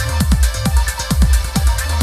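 Electronic dance music with a steady fast beat, about four beats a second, over deep bass.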